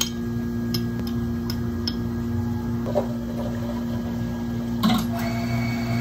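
Steady hum of cafe equipment, with light clicks of ice in a plastic cup in the first two seconds. About five seconds in there is a short splash as sparkling water from a plastic bottle starts pouring over ice, and it runs on as a steady pour.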